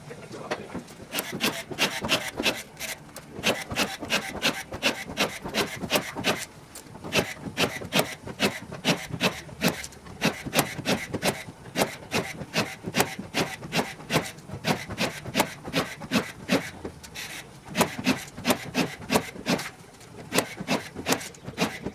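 Quick repeated scraping strokes, about three a second, pausing briefly a few times.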